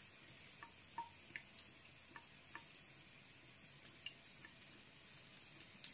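Near silence: faint hiss with a few scattered soft ticks and clicks at irregular moments, one a little louder about a second in and another near the end.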